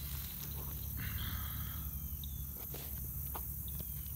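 Small alligator feeding on floating fish food pellets at the water's surface: a brief splash about a second in, then several sharp snaps of its jaws in the second half, over a steady low rumble.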